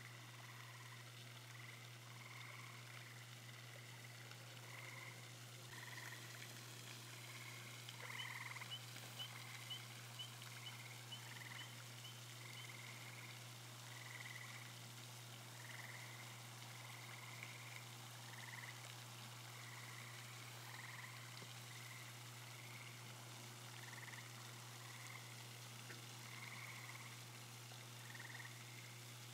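Faint chorus of frogs calling in repeated short notes over a steady low hum, with a quick run of about ten rising chirps near the middle.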